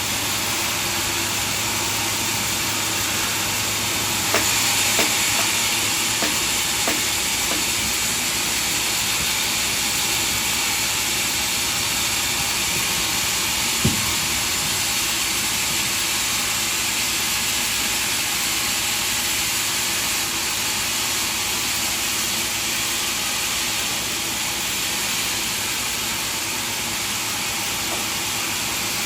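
Sawmill machinery running with a steady hissing noise. A few short knocks come around four to seven seconds in, and one sharp knock about halfway through.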